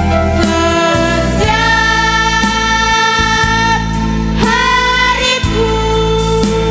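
Girls' school choir singing long held notes over instrumental accompaniment with a steady bass line.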